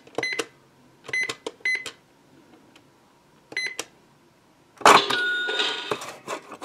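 Minnie Mouse Bowtique toy cash register with keypad buttons being pressed. Each press gives a short electronic beep, about four spaced out over the first four seconds. About five seconds in comes a louder, longer electronic cash-register sound effect.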